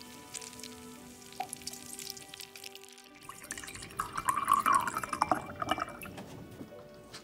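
Milk pouring from a paper carton into a glass tumbler for about two seconds, starting about four seconds in, over soft background music.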